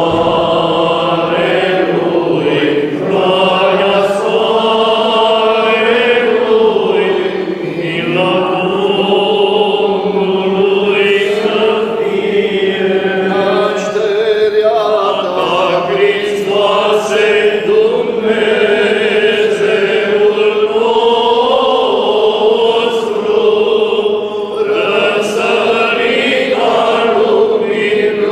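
Orthodox priests, a group of men's voices, singing a chanted hymn together without instruments. The singing runs on continuously, with long held notes.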